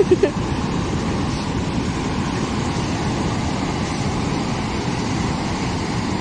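Steady rush of breaking ocean surf, with wind on the microphone.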